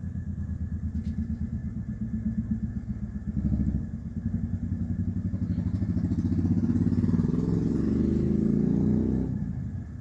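1994 Encon 36-inch ceiling fan running fast, its spinning blades giving a rapid, rhythmic pulsing whoosh. The sound swells and then drops away about nine seconds in.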